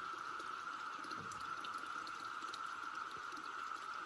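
Chorus of 17-year periodical cicadas, one steady high drone that does not let up, over spring water pouring from a pipe.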